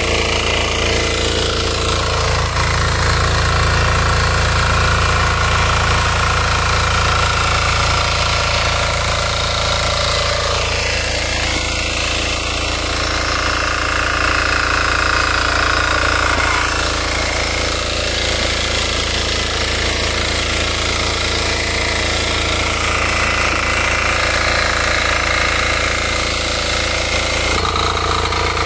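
KisanKraft 350D mini power tiller's small diesel engine running steadily under load while its rotary tines churn the soil.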